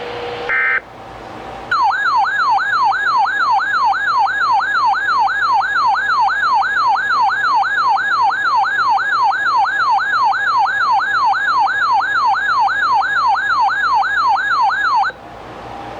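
Electronic emergency alert tone, siren-like, sweeping up and down about two and a half times a second for some thirteen seconds before cutting off abruptly, preceded by a brief high beep about half a second in. It is the alert signal that comes before a flash flood warning.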